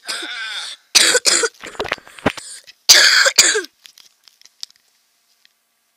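A person coughing in several harsh bursts over the first three and a half seconds, followed by a few faint clicks.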